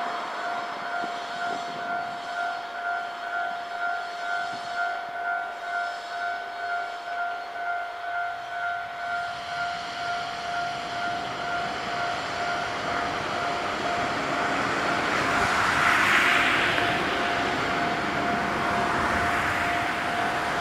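Japanese level-crossing alarm ringing, a pulsing electronic ding at about two strokes a second. An Iyotetsu 700 series electric train (ex-Keio 5000 series) approaches; its running noise builds from about halfway and is loudest about three-quarters of the way through.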